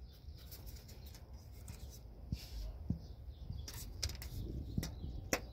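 Faint handling noise: small clicks and scrapes as a clipped electrical plug is unclipped and pulled off its socket, with a few sharper clicks in the second half.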